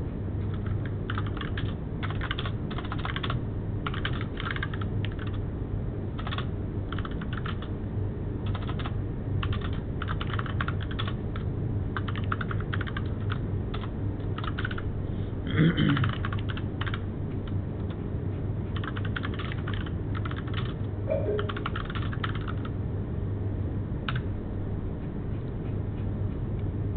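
Typing on a computer keyboard in irregular bursts of quick keystrokes, over a steady low hum. There is one brief louder sound about two-thirds of the way through.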